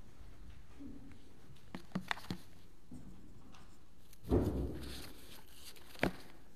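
Quiet sanctuary room tone with a few light footstep clicks, then a thump and brief rustle at the wooden pulpit about four seconds in as a book is laid on it, and a single sharp click near the end.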